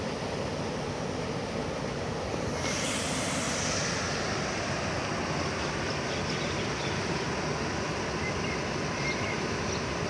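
Water spilling over a low concrete weir and crashing into the pool below: a steady rushing, whose hiss turns brighter about two and a half seconds in.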